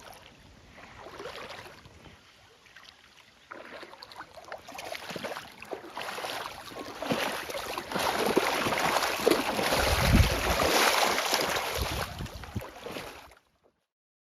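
Water splashing and churning from a mass of European carp thrashing in shallow floodwater, building to its loudest near the middle and then cutting off abruptly near the end.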